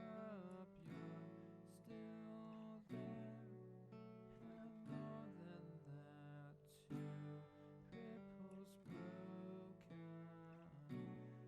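Quiet background music led by plucked guitar, a steady run of picked notes and chords.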